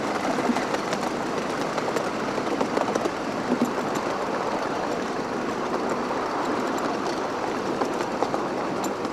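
A coal-fired 7¼-inch gauge live-steam model of a Kerr Stuart Wren saddle-tank locomotive running along its track. It makes a steady running noise with scattered small clicks from the wheels on the rails.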